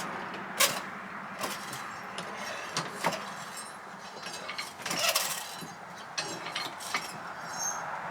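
Scattered metallic clinks and knocks from hands and tools working on the parts of an old sawmill carriage, a cluster of them about five seconds in, over a steady low hum.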